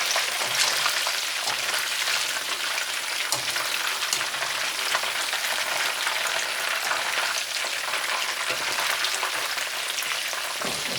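Chicken frying in hot oil: a steady sizzle with many fine crackles.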